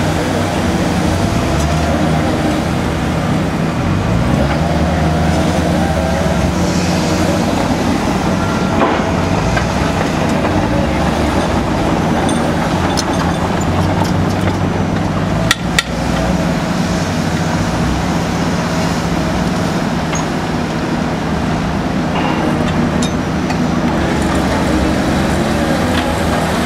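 Mori M60 foundation drill rig's engine running steadily, its pitch wavering briefly a few seconds in. Two sharp knocks about halfway through.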